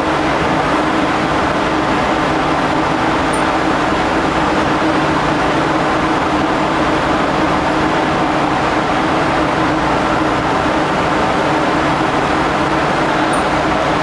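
Ship's machinery running with a steady, loud drone and a low hum underneath.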